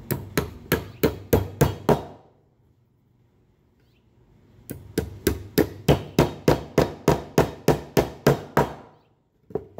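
Claw hammer driving nails into pine boards: two runs of steady blows at about three a second, with a pause of a couple of seconds between them, and a single knock near the end.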